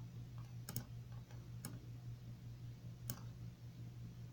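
A few short, isolated clicks from computer controls, roughly a second or more apart, over a low steady electrical hum.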